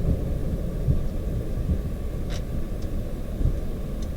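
Low, steady rumble in a Boeing 737-800 cockpit as the airliner rolls out after landing, with a faint click about two seconds in.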